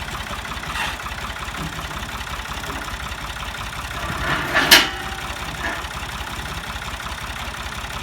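Heavy-equipment engine idling with a steady low pulse. One sharp, loud knock comes about halfway through, with a couple of fainter knocks before and after it.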